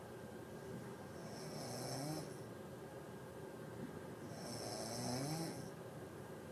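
A sleeping person snoring: two snores about three seconds apart, one about a second and a half in and one about four and a half seconds in, each rising in pitch.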